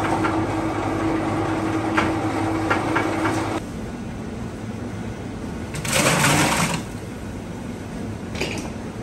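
Electric mincer running with a steady hum and clatter as onions are fed through it, cutting off abruptly about three and a half seconds in. A couple of seconds later comes a short, loud scraping rattle of a plastic crate being moved on a steel shelf.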